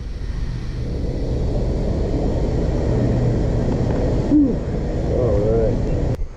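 Steady low rumble, like a motor running at a distance, with a brief pitched wavering sound over it; it cuts off suddenly near the end.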